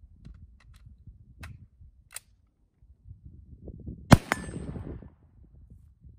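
A single loud gunshot about four seconds in, followed almost at once by a second sharp crack with a brief ringing tone and a fading rumble. A few faint clicks come before it.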